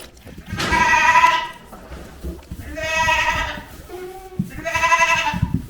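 Goat bleating three times, each call about a second long, roughly a second apart.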